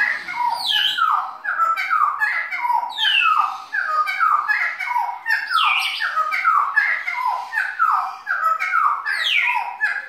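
Cucak timur songbird singing a long unbroken run of rapid whistled notes, each sliding downward, in a continuous rolling song (ngeropel); it stops right at the end.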